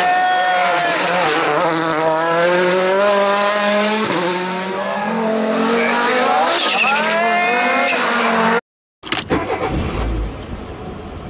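Rally car engine revving hard, its pitch climbing and dropping several times with gear changes and throttle lifts. It cuts off suddenly about eight and a half seconds in, and a quieter, different sound with a few clicks and a low thud follows.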